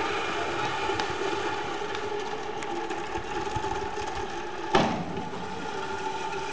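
Zip-line trolley rolling along its cable with a steady whirr, and one sharp bang about three-quarters of the way through.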